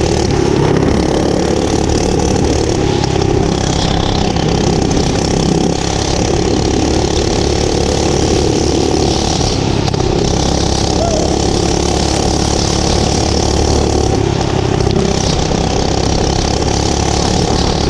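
Small gas engine of a home-built bike running steadily while the bike is ridden.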